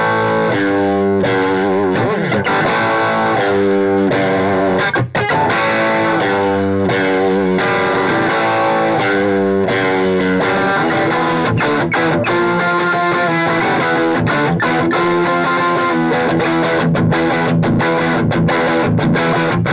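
Slick SL59 electric guitar with a single P90 pickup, played amplified: strummed rock chords and riffs. The second half is choppier, with quick stops between chords.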